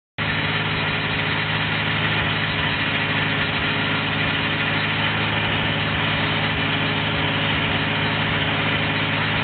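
Homemade wood chunker built on an International tractor's rear end, running steadily with a continuous mechanical hum and drone.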